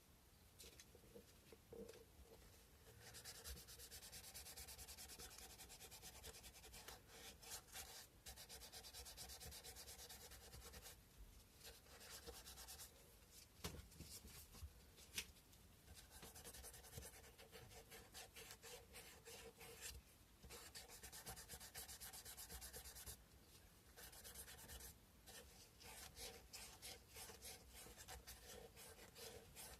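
Faint scratchy rubbing of sandpaper worked by hand over a carved cow-bone fish hook, in runs of several seconds broken by short pauses. A couple of light clicks come about halfway through.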